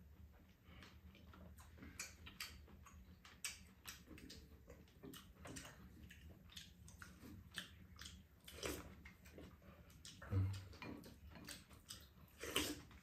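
Two people eating quietly: chewing and mouth sounds with many small clicks of chopsticks and spoons against bowls and the tray, and a single low thump about ten seconds in.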